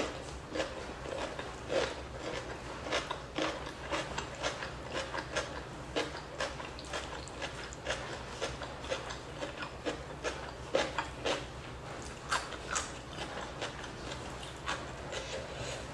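Close-miked chewing of a mouthful of rice and fish skin: irregular wet mouth clicks and smacks, a few each second, over a faint steady low hum.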